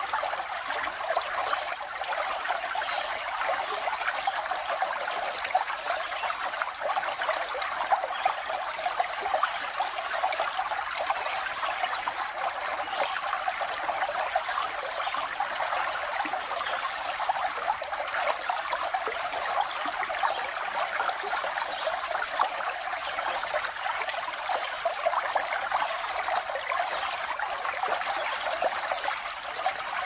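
Small mountain stream burbling steadily, a continuous trickling rush of water with no low rumble.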